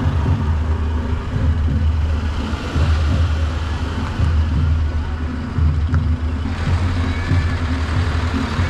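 Bus engine idling, a steady low rumble.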